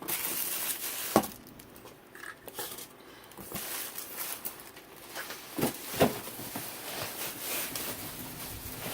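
Packaging rustling and crinkling as a dehumidifier is unboxed, with a few sharp knocks, the loudest about a second in and two close together around six seconds in.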